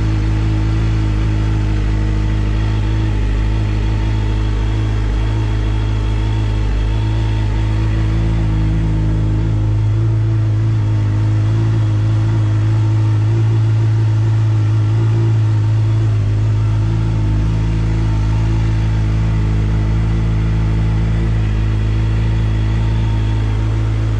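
Suzuki GSX-R sportbike's inline-four engine idling steadily, growing a little louder for a few seconds near the middle.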